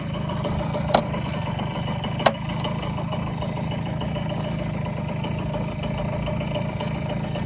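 Yamaha YB-1's small single-cylinder four-stroke engine idling steadily, with two sharp clicks about a second and two seconds in.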